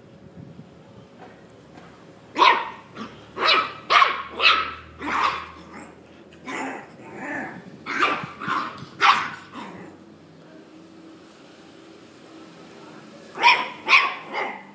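Jagdterrier puppies barking: a run of about ten short, sharp barks, a pause, then two more near the end.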